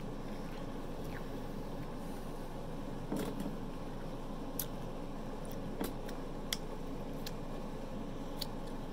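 Close-miked eating sounds of a person chewing pizza and licking her fingers: a few scattered wet mouth clicks and smacks over steady low background noise.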